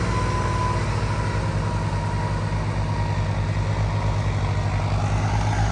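Diesel tractor engines running steadily at high power, with a low, even throb.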